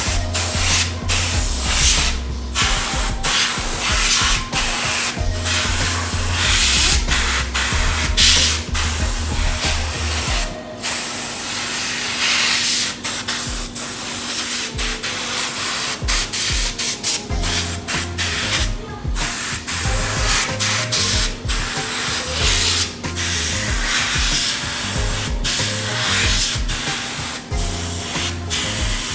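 Compressed air hissing from an air-compressor blow gun in repeated blasts, cut by many brief pauses, as it blows dust out of a mining rig.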